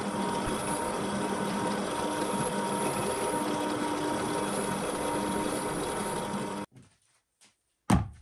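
Benchtop drill press motor running steadily, cleaning a small part held in pliers against the spinning chuck, then cut off abruptly. After a moment of near silence comes one sharp knock near the end, as the metal vise body is set down in a plastic tub.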